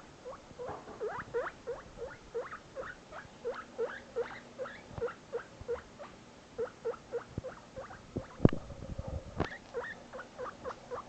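Guinea pig squeaking in a rapid, even series of short rising squeaks, about two or three a second, the calling he makes when separated from his companion. One sharp knock about eight seconds in.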